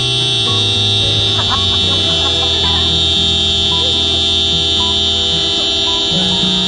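Background music: a steady, buzzy electronic drone over a bass line that steps from note to note, with short repeating higher notes. A brief wavering, voice-like sound rises and falls about one and a half to three seconds in.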